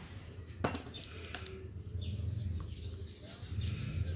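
Toothbrush scrubbing teeth in short, repeated scratchy strokes, over a low hum. A sharp click comes about two-thirds of a second in.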